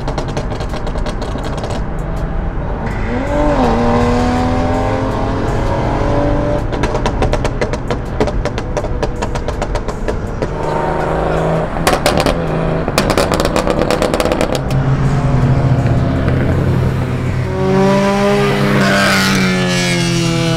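Car engines accelerating hard on a highway roll race, revving up several times with the pitch climbing and holding high, heard from inside a moving car, with bursts of rapid crackling.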